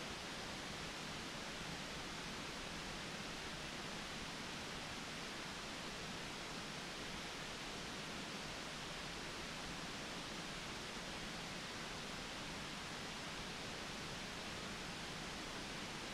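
Steady, even hiss with no distinct events, like a camera microphone's own noise.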